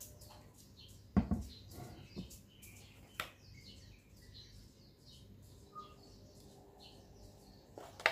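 A plastic measuring spoon knocking and scraping against a mixing bowl as batter is scooped and poured, a few sharp knocks, the loudest about a second in and another near the end. Faint high chirps run underneath.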